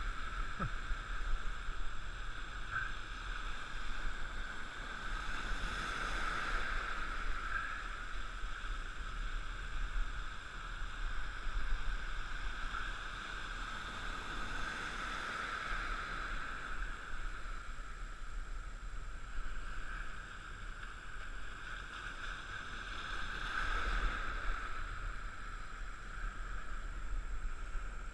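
Steady rush of moving river water around a wading angler, swelling and easing a little, with some wind on the microphone.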